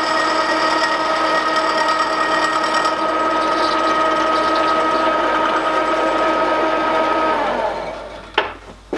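Milling machine running with its end mill taking a light cut along the edge of a gunmetal casting: a steady multi-toned whine with cutting noise. About seven and a half seconds in the spindle is switched off and the whine sags and dies away, followed by a single sharp knock.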